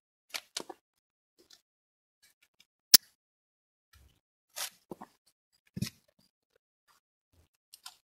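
Scattered wooden knocks and clicks from logs being handled on a log wall, with one sharp crack about three seconds in that is the loudest, a short scrape-like rustle a little later, and a dull thump near six seconds.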